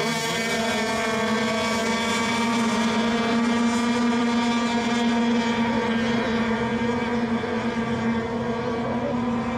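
Radio-controlled racing boats running at speed on the water: a steady, high engine tone with many overtones that holds nearly the same pitch throughout.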